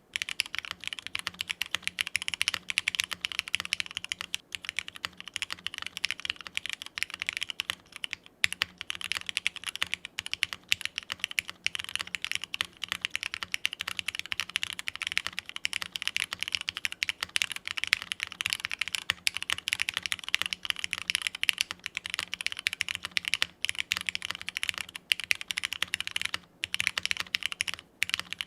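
Fast continuous typing on a TGR Tomo SE mechanical keyboard with diamond-polished, Krytox-lubed Cherry MX Black linear switches in a polycarbonate plate, a dense run of keystrokes with a few brief pauses.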